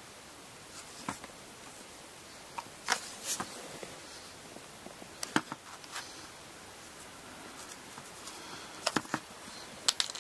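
Scattered small clicks and rustles of hand sewing: needle and thread being worked through a zori's front thong (maezubo) and thong cord.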